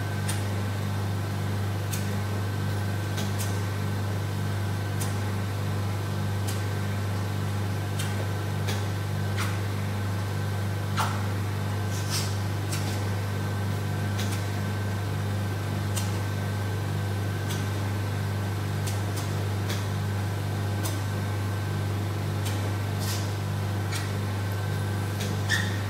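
Steady low hum of a vacuum RF roller body-contouring machine's suction pump running, with a faint regular pulsing over it and scattered light clicks.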